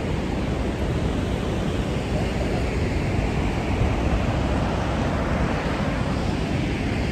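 Steady, loud rush of the Rhine Falls waterfall: an even noise with no break or change, heaviest in the low range.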